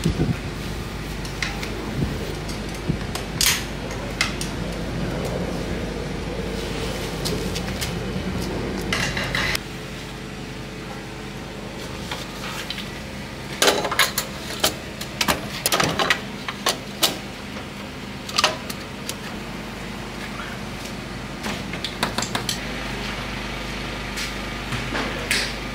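Scattered metallic clinks and knocks of tools and parts being handled while working on a sprint car, over a steady low hum that fades away for several seconds in the middle.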